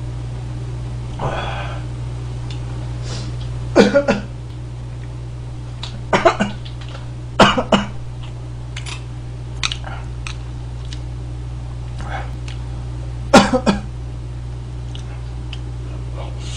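A man coughing in short fits, four times, two or three quick coughs in each, while eating very spicy Buldak fire noodles. A steady low hum runs underneath.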